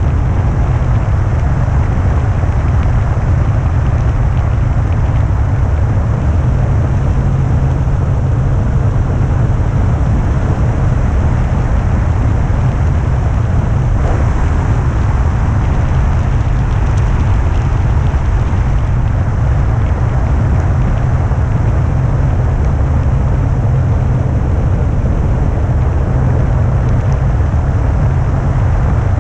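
Airflow of a hang glider in flight buffeting a wing-mounted camera's microphone: a loud, steady rumble of wind noise.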